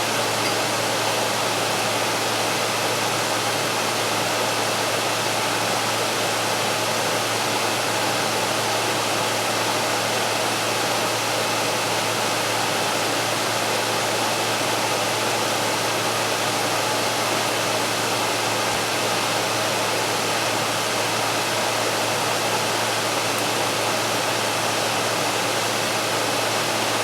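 Frigidaire air conditioner's fan running, a steady rush of air over a constant low hum, with the compressor not yet cut in.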